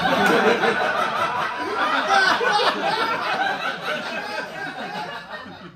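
Audience laughing loudly, many voices at once, the laughter dying down near the end.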